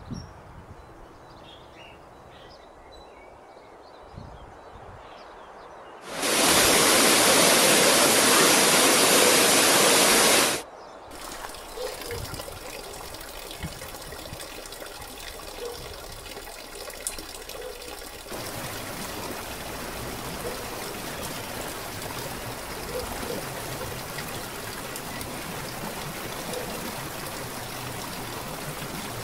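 Flowing water in a run of separate outdoor recordings. After a few quiet seconds, a loud even rush of water cuts in for about four seconds and stops abruptly. Then water trickles and splashes from a mossy wooden log flume, and from about two-thirds of the way in a small waterfall pours steadily onto rocks.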